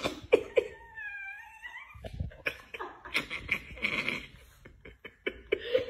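Chihuahua vocalizing: a high, wavering cry of about a second, then a run of rougher, noisy vocal sounds with a few short clicks.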